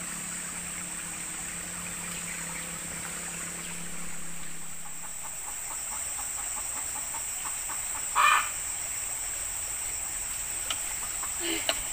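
Short bird calls, with one louder call about eight seconds in, over a steady high-pitched insect drone.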